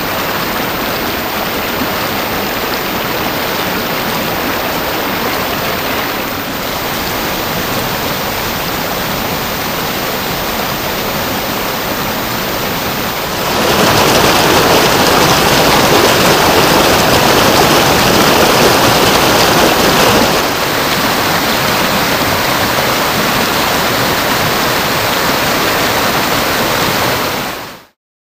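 Rushing stream water, a steady loud noise. It steps louder about halfway through, drops back a few seconds later, and cuts off abruptly near the end.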